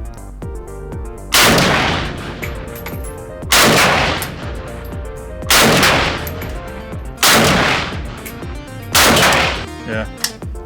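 Five single shots from a Draco AK pistol, fired slowly about two seconds apart, each a sharp blast with a long echoing tail.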